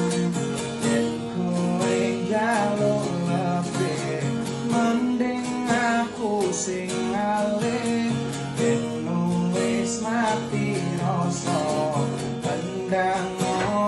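A singer performing a slow melody over a strummed acoustic guitar.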